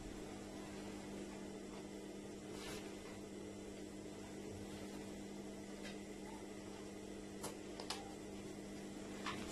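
Steady low electrical hum with a few faint clicks.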